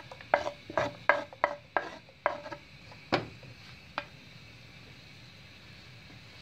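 Wooden spoon knocking and scraping against a wooden cutting board as chopped red onion is pushed off it into a pan of melted butter: a quick run of about eight knocks in the first two seconds or so, then two louder single knocks. After that only a faint steady sizzle of the butter remains.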